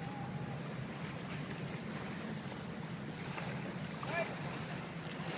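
Wind and water rushing past a sailboat under way, with wind buffeting the microphone over a steady low hum. A couple of faint short calls come through near the start and about four seconds in.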